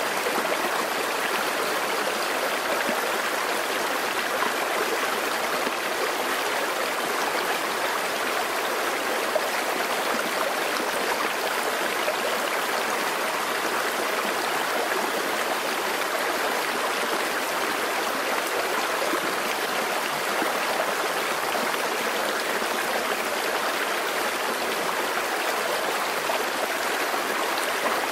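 A rocky stream flowing over stones: a steady, even rush of water.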